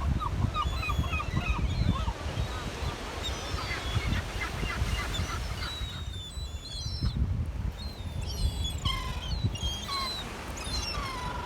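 Gulls calling. Runs of short, quickly repeated yelping calls give way to a thick cluster of overlapping calls around the middle, then longer calls that slide down in pitch toward the end, all over a steady low rumble.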